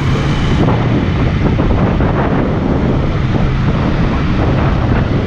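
Wind buffeting the microphone while riding a motorcycle, over the steady hum of its engine.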